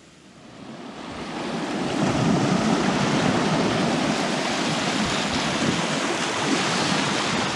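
Wind and river waves rushing steadily, with wind buffeting the microphone; it swells up over the first two seconds.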